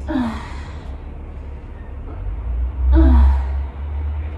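A woman's two short, hard exhales with a falling pitch, about three seconds apart, from the effort of kettlebell single-leg deadlifts. A low rumble swells under the second exhale.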